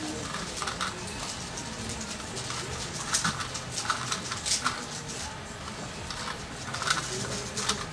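Busy-room background at a crowded event: a steady hubbub with scattered small clicks and knocks, and no clear speech.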